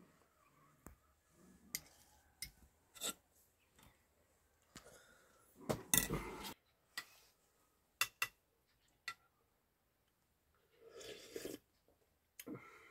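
Metal spoons clinking and scraping against china and glass bowls as garlic and sauce are stirred into a bowl of soup: scattered separate clinks, with a louder scrape about six seconds in and a brief burst of noise near the end.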